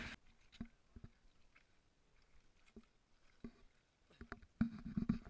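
Scattered footsteps of people in rubber boots walking on a muddy trail, with soft knocks from the handheld camera; a louder cluster of steps and a voice come in near the end.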